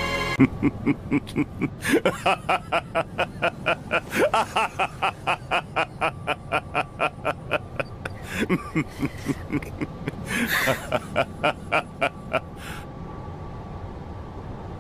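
A man's long, drawn-out laugh voiced by an anime voice actor: a steady run of 'ha-ha' bursts, about four a second. It swells around two, four and ten seconds in and stops about twelve seconds in, leaving a steady low background tone.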